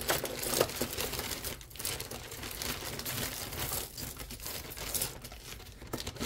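Hands rummaging through a pile of costume earrings, with irregular crinkling and rustling, likely from the small plastic bags the jewelry came in, and small clicks of metal pieces.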